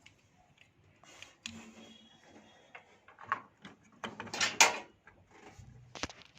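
A stock CPU cooler being set onto a motherboard and worked into its screwless retention fitting: scattered handling clicks and short scrapes, with the loudest clatter about four seconds in and a few sharp clicks near the end.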